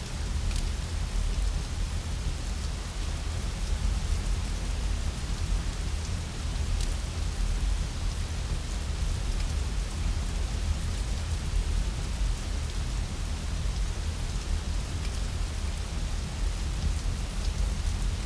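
Rain falling steadily, over a constant deep rumble, with a few faint sharp ticks scattered through it.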